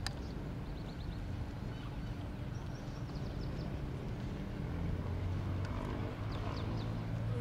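Outdoor ambience: a steady low rumble that grows louder about five seconds in, with a few short, quick trills of high chirps and a single sharp click at the very start.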